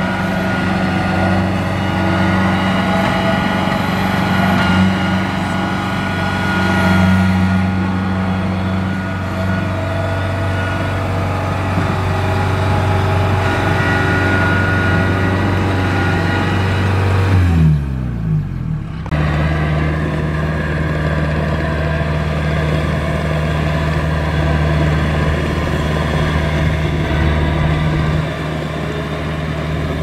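Kubota DC-70 Plus combine harvester running steadily while harvesting rice: the drone of its diesel engine with the threshing machinery. A little over halfway through the engine note falls quickly and settles at a steady lower pitch.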